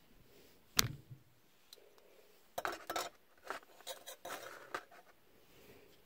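Opinel No. 7 folding knife being handled and opened: a sharp click about a second in, then a quick run of metallic clicks and scrapes from the blade and its steel locking ring.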